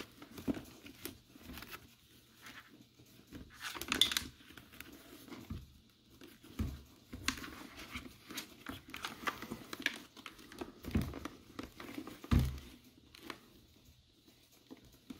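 Hands working a wire through a motorcycle helmet's foam-and-fabric liner: irregular rustling, scraping and small clicks of padding and plastic being handled, loudest about four seconds in and again near the end.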